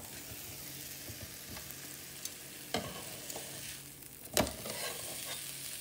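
Chicken sizzling on the hot plate of a George Foreman electric contact grill, with two sharp clacks, one a little under halfway and a louder one about three-quarters through, as metal tongs knock against the grill while turning the meat.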